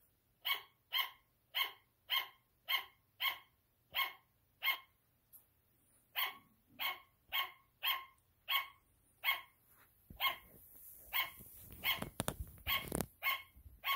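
Sugar glider barking: short, sharp yaps repeated at a steady pace of a little under two a second, with a brief pause about five seconds in. In the last few seconds, rustling and knocks come in under the barks.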